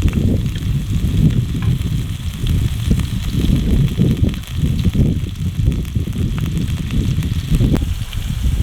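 Meat sizzling as it grills in a pan, with faint crackles over a heavy, fluctuating low rumble.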